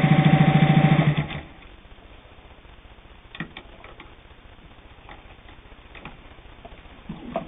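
Singer 201 sewing machine with a built-in gear-driven motor stitching rapidly and steadily through two layers of split leather, then stopping suddenly about a second in. After that come a few light clicks and knocks as the handwheel is turned by hand and the work is handled.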